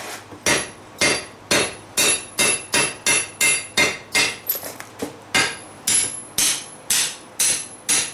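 Hand hammer striking a red-hot steel bar held against the side of an anvil, about two ringing blows a second, with a few lighter taps about halfway through. The smith is upsetting the bar to square up the corner of a bend.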